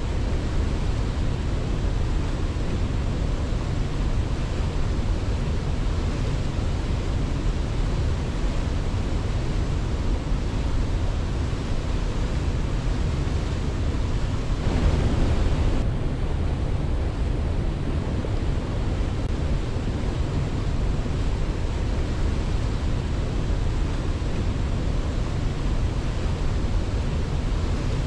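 Steady rushing of a waterfall, heaviest in the low end, swelling briefly about fifteen seconds in.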